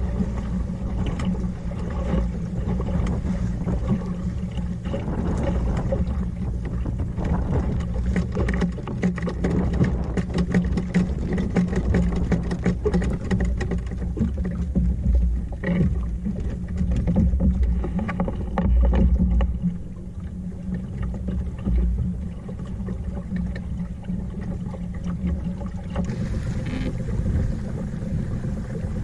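Water rushing and splashing along the hull of a small wooden sailing dinghy under way, with wind buffeting the microphone in a gusting low rumble. Scattered knocks and clicks from the boat and its lines come through it.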